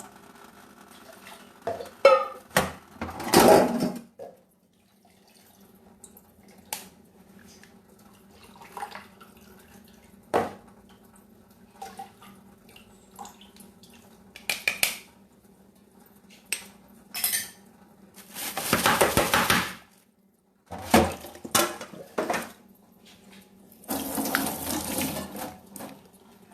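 Kitchen bowls and utensils clinking and knocking, with three spells of about one to two seconds of pouring or splashing liquid as turmeric water is strained into a basin. A steady low hum runs underneath.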